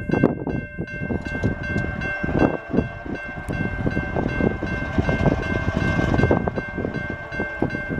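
Union Pacific diesel locomotives approaching at the head of a freight train, the horn held in one long steady blast over the rumble of the engines.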